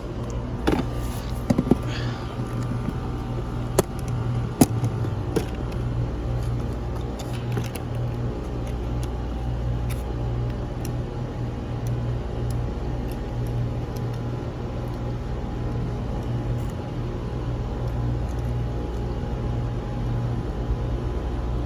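Steady low hum of running machinery, with a few sharp clicks and knocks of parts and tools being handled in the first five seconds.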